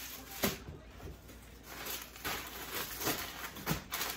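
Goods being handled and rummaged out of a large cardboard box: scattered light knocks and rustles of packaging.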